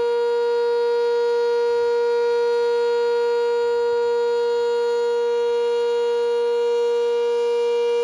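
Sentry 10V outdoor warning siren sounding its steady alert tone at full speed: one loud, unchanging pitch with no rise or fall.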